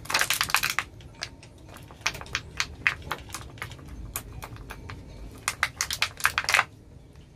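Flat mixing stick clicking and scraping against the sides of a clear plastic cup while stirring thick epoxy resin mixed with colloidal silica. There are quick runs of clicks at the start and again near the end, with scattered single clicks between.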